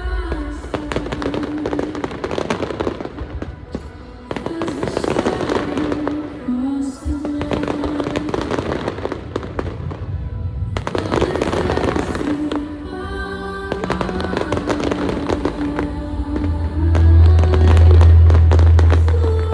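Aerial fireworks bursting and crackling over a loud music soundtrack with long held notes. A deep low rumble swells near the end and is the loudest part.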